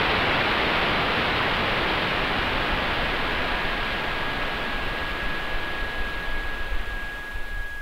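Steady hiss of static-like noise, the sound effect of an animated title sequence. A thin, steady high whistle comes in about two and a half seconds in and grows stronger. Both cut off suddenly at the end.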